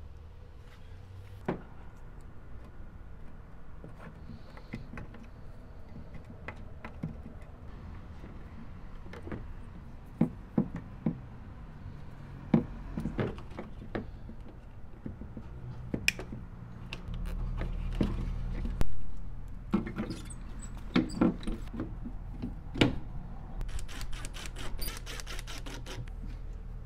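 Hands working wiring and plastic parts at a pickup's tail-light opening: scattered light clicks and knocks, and a low hum for a couple of seconds midway. Near the end comes a quick run of rapid ratcheting clicks as a zip tie is pulled tight.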